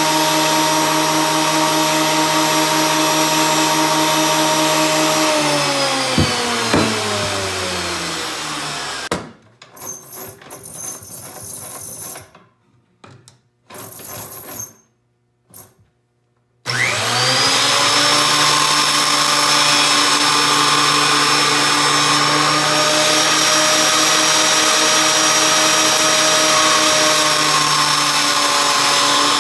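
Small electric wood planer's motor running at speed. It is switched off about five seconds in and winds down with a falling whine. After several seconds of near quiet with a few light knocks, it is switched back on, whines up to speed within a second and runs steadily.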